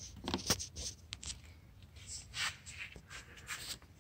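Scattered scratchy rustles and light clicks of handling noise as someone moves about inside a car with a handheld camera.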